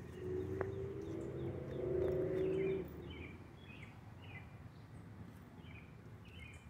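Small birds calling outdoors, a series of short, falling chirps repeated through the second half. Before them a steady hum swells and then stops abruptly about three seconds in; it is the loudest thing heard, and its source is not shown.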